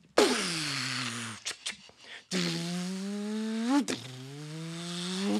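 A man's beatboxed vocal impression of a car, made with the mouth into a microphone. It starts suddenly with a loud buzzy sweep falling in pitch, then two long engine-like hums that creep upward in pitch, the first ending in a short upward flick.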